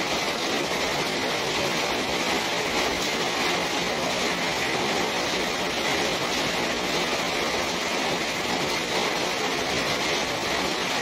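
Steady rain falling on a small garden, an even hiss that neither swells nor breaks.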